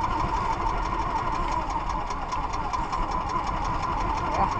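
Small outrigger boat's engine running steadily while under way, with water rushing along the hull and outrigger.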